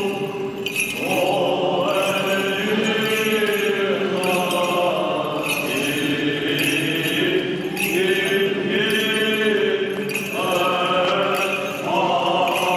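Greek Orthodox Byzantine chant: voices singing long, drawn-out melismatic notes that step up and down in pitch over a steady low held note, without pause.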